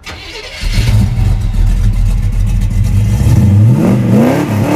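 A vehicle engine running steadily after a hissy swish, then revving, its pitch climbing over the last second.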